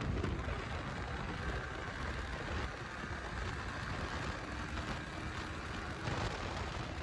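Yamaha R15's 155 cc single-cylinder engine running as the bike accelerates on the road, mixed with wind rush on the microphone.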